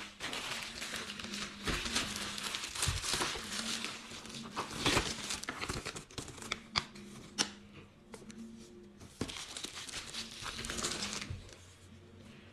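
Phone box packaging being torn open and crinkled by hand, in two spells of rustling and tearing with a few sharp clicks between them.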